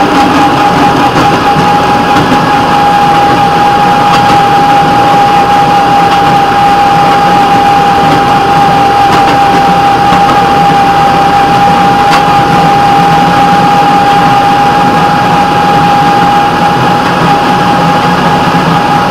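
Rail vehicle running steadily along the track: an even engine and rolling noise with a constant high whine held throughout.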